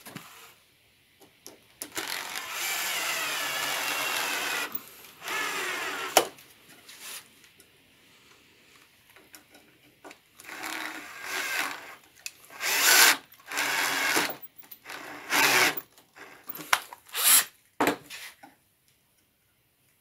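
Makita cordless drill driving wood screws into a plywood plate on a workbench leg. It runs for about three seconds near the start, then in several short bursts, with a few clicks between them.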